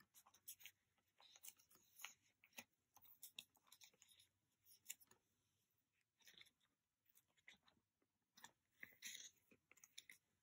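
Faint crinkling and light clicks of plastic card sleeves as photocards are handled and slid into a binder's pocket page, with a short run of louder rustles near the end.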